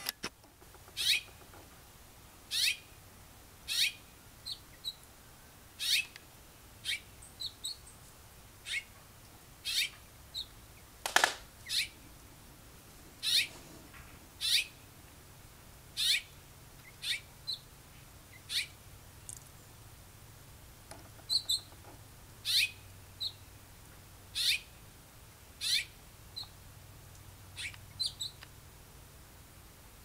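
Northern cardinals giving sharp chip calls, a loud downward-sweeping chip every one to two seconds, with fainter, higher short notes in between.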